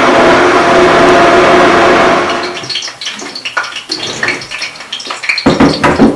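Countertop blender running steadily at full speed, pureeing soaked peeled black-eyed beans into a smooth batter, then switching off a little over two seconds in. Clicks and knocks of the blender jug being handled follow, with a louder thump near the end.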